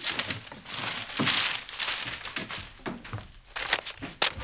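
Paper rustling as pages are turned and shuffled, in irregular swishes, with one short sharp knock near the end.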